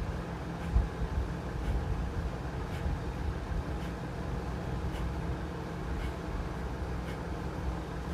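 Forceful nasal exhalations of kapalbhati breathing, short sharp puffs about one a second at a moderate pace, over a steady low rumble.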